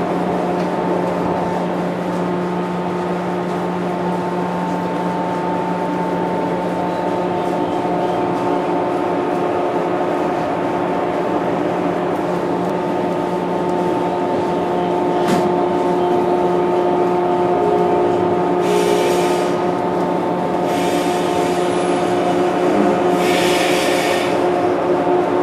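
Inside a 415-series AC/DC electric train standing at a station: a steady hum of its onboard equipment with several even tones over a soft hiss. There is a single click about fifteen seconds in, and three short hisses in the last several seconds.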